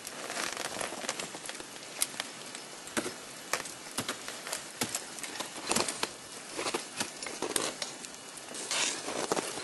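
Crampons and ice tools striking and scraping the ice of a frozen waterfall: irregular sharp knocks, several a second at times, with short scraping smears between them.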